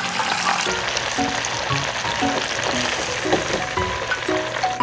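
Food deep-frying in hot oil, a dense sizzle with many small crackles and pops.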